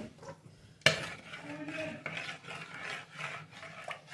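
Kitchen handling noises while mixing dough ingredients: a sharp knock about a second in, then irregular scraping and rubbing.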